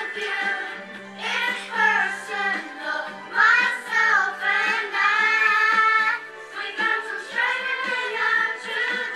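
A song with high children's singing voices over backing music.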